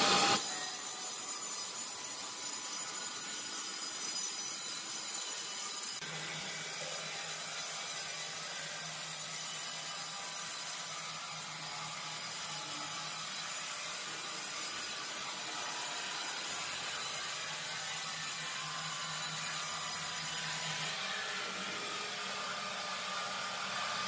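Band sawmill cutting lengthwise through a large hardwood timber: a steady sawing hiss with the saw's motor humming underneath.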